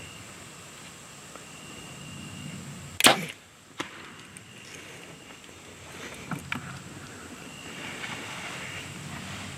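A bow shot at a whitetail buck: a loud sharp snap of the bowstring and arrow about three seconds in, with a smaller sharp click just after it. A few faint cracks follow as the hit buck bolts for the woods.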